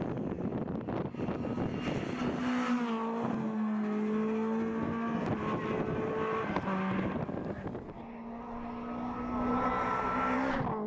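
Renault Clio RS rally car's 2.0-litre four-cylinder engine held at high revs under hard acceleration, its note steady and high, dipping briefly about seven seconds in and then climbing again. Rough noise comes before the engine note rises in the first couple of seconds.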